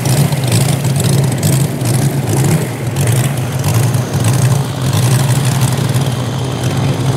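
Moki 250cc radial engine of a quarter-scale CARF F4U Corsair model running steadily at low taxi throttle, with an even low throb from the propeller. It fades slightly near the end as the plane moves off.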